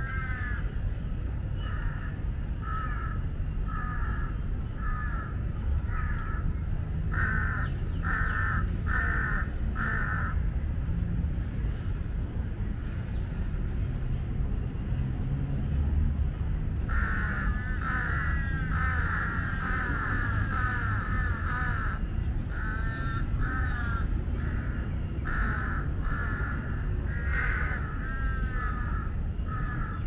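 Parent jungle crows cawing repeatedly in distress at a monitor lizard that has taken their young: runs of harsh caws for about ten seconds, a pause of several seconds, then a dense burst of caws and more calls to the end. A steady low rumble lies underneath.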